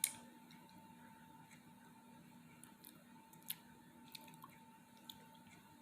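Faint chewing and mouth clicks from someone eating a peanut butter sandwich, a few sharp clicks standing out, over a steady faint hum.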